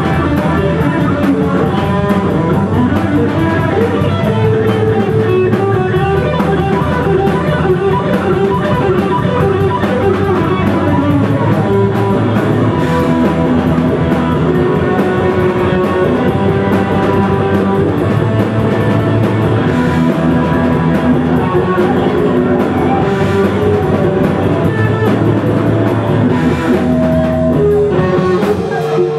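A live rock band playing: electric guitar, bass guitar and drum kit, loud and unbroken.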